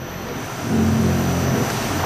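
125-ton Titan press cycling: a low, steady drone of its drive working under load, which swells up about half a second in.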